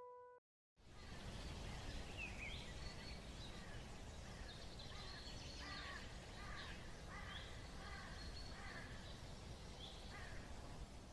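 Faint outdoor ambience: a steady background hiss with birds chirping now and then, short high calls through the middle of the stretch.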